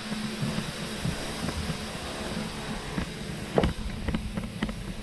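A steady mechanical hum, with a single sharp knock about three and a half seconds in and a few light clicks after it.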